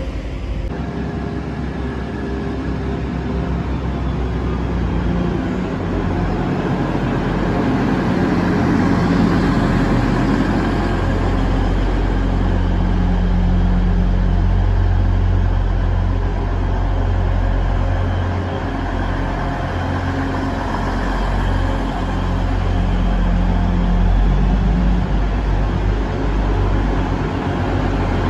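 EMR Intercity Class 222 Meridian diesel multiple unit at a platform, its underfloor diesel engines running with a steady low drone that grows stronger a few seconds in.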